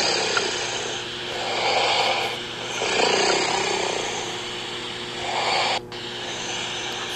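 Recorded snoring played back from a sleep app: a run of noisy snoring breaths swelling and fading, broken off abruptly about six seconds in. The sleeper, who wears mouth-closing tape, takes part of the sound for breath leaking out at the side of the lips.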